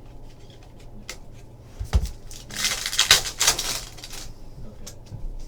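A thump about two seconds in, then a foil trading-card pack wrapper torn open and crinkled for about two seconds, among light clicks of card handling.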